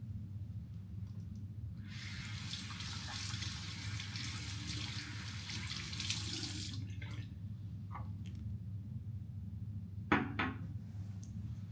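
A water tap running into a sink for about five seconds, turned on and off abruptly, over a steady low room hum. Light clicks follow, then a short sharp knock near the end.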